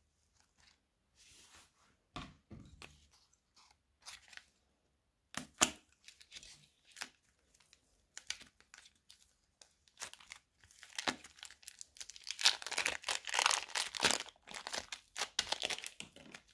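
Soft pink clay being squeezed, stretched and torn apart by hand, giving crackly tearing sounds. These start as scattered crackles and become a dense crackling run in the last few seconds.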